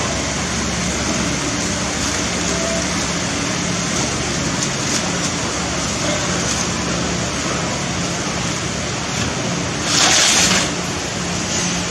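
Steady hiss of shop background noise with a faint low hum, and a brief louder rush of noise about ten seconds in.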